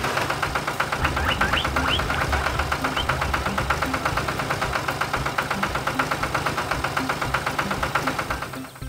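Tractor engine sound effect running with a steady, rapid chugging, fading out near the end as the tractor drives away.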